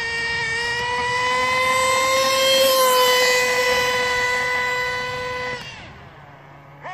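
Losi 8IGHT nitro RC buggy's two-stroke glow engine at full throttle, geared with a 14-tooth clutch bell: one long, steady, high-pitched whine that drops slightly in pitch about three seconds in as the buggy runs away down the road. It cuts off when the throttle is released near the end, followed by a couple of short revs.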